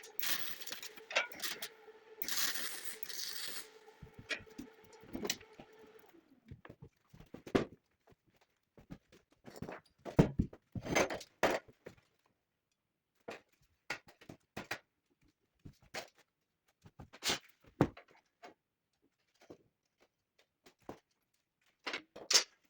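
A steady hum with a noisy hiss for about the first six seconds, then scattered short knocks, clicks and scrapes with quiet gaps between them, like metal being handled in a workshop.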